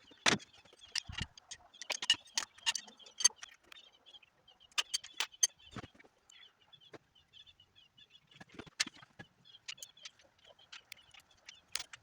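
Fast-forwarded engine teardown sound: quick, irregular metallic clinks and knocks of hand tools and engine parts, sped up so they run together into a chattering clatter.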